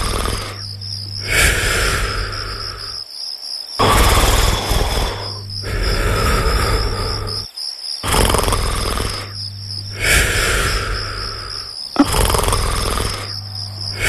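A cartoon character snoring in slow, regular breaths, each in or out breath lasting about two seconds, over a steady chorus of chirping crickets.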